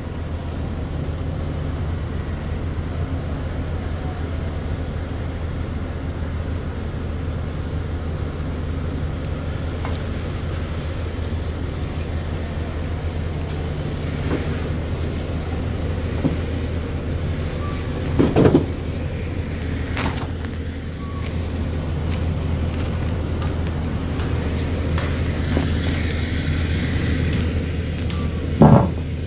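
A large diesel engine runs steadily at idle on a drilling rig site, giving a constant low hum. Two brief louder sounds break in, about 18 seconds in and again near the end.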